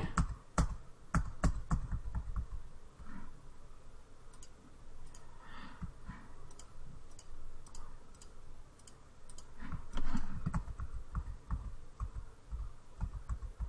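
Computer keyboard and mouse clicking: irregular, scattered keystrokes and button clicks, with a louder, duller knock about ten seconds in.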